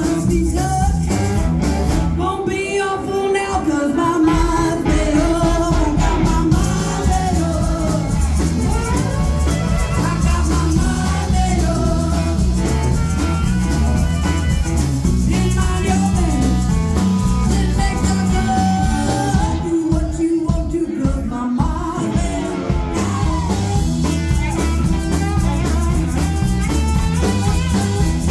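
A live rhythm-and-blues band playing with a steady beat, a woman singing over bass, drums and guitar.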